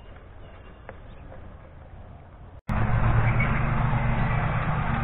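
A quiet background with a couple of faint high chirps, then, from about two and a half seconds in, a loud steady motor hum with a constant low drone.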